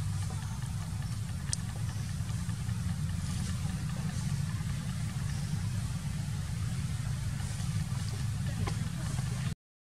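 Steady low mechanical rumble, with a few faint ticks over it. It cuts out for a split second near the end.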